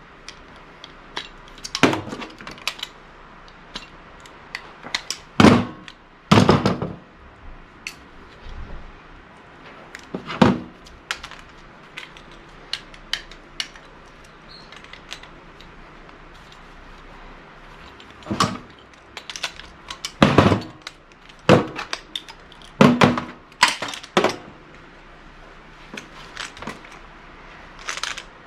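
Irregular metal clanks and knocks of hand tools and parts while a gas wall heater is dismantled for scrap. There is a loud pair about five to seven seconds in, quieter ticks in the middle, and a cluster of clanks toward the end, over a faint steady hum.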